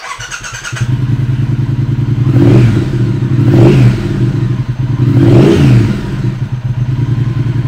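2020 Triumph Speed Twin's 1200 cc parallel-twin engine turned over on the electric starter, catching within a second and settling into a fast idle. It is then revved twice, the pitch climbing and falling back each time.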